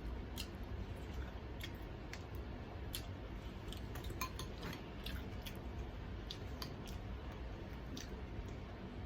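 Fried chicken being eaten up close: scattered small clicks and light crunches over a low steady hum.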